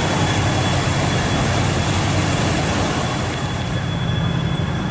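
A sternwheel riverboat's paddle wheel churning the water: a loud rush of splashing over a steady low rumble, with a thin steady high whine. About three and a half seconds in the splashing fades, leaving the low rumble.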